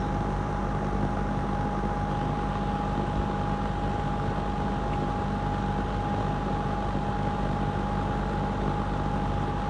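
Lakewood P25 metal-blade box fan running steadily in a window on exhaust, its metal blades chopping the air. A low hum with one clear steady tone above it and a constant rush of air.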